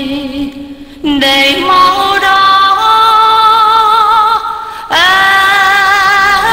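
Female voice singing a slow Vietnamese song over backing music, holding long notes with vibrato. A new note begins about five seconds in.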